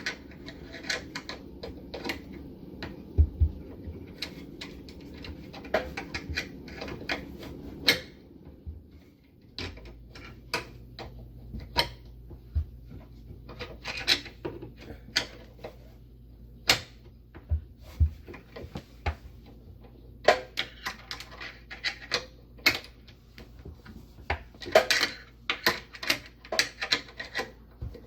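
Screw being driven by hand into the wooden cabinet face plate: irregular clicks and short scraping rubs as the screwdriver turns and grips the screw.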